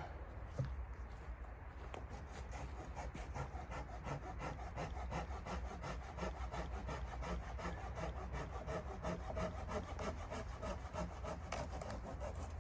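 Hand saw cutting through wood in quick, even back-and-forth strokes.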